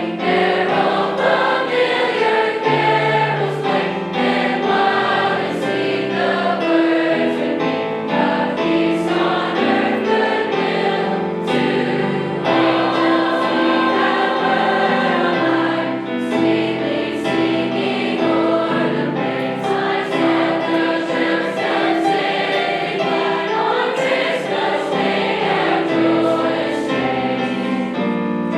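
High school choir singing a Christmas song with musical accompaniment.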